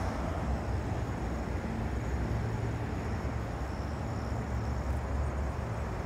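Steady outdoor background noise: a low rumble and hiss of street traffic.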